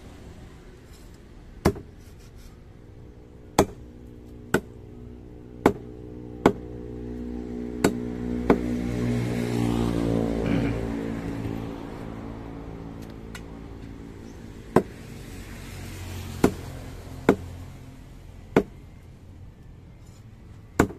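Heavy cleaver chopping red reef fish into pieces on a thick wooden stump block: about a dozen sharp chops at uneven intervals, with a pause in the middle. A passing motor vehicle swells up and fades away in the middle.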